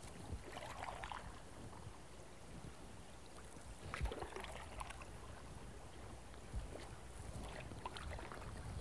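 Faint, steady rippling of shallow river water running over rocks in a low-water riffle, with a few soft knocks scattered through it.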